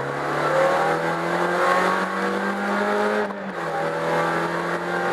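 Ford Fiesta XR2i rally car's four-cylinder engine heard from inside the cabin, accelerating hard with its note climbing steadily; about three and a half seconds in the note breaks and drops briefly, as at an upshift, then pulls on again.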